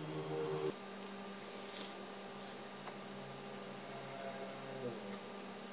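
Faint steady low hum over light room hiss; its tones shift slightly about a second in and again near the end.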